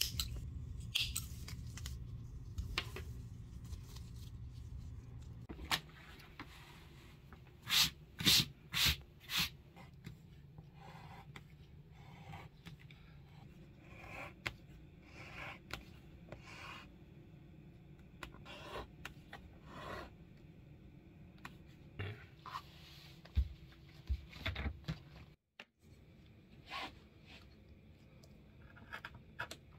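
Close-up leather-working sounds: a metal pick scraping and picking at the frayed fabric of a worn handbag handle, then a knife cutting leather along a metal straightedge, with scattered taps and scrapes. Four sharp strokes stand out about eight seconds in.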